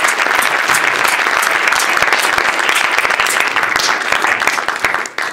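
Audience applauding: a dense clatter of many hands clapping that dies away near the end.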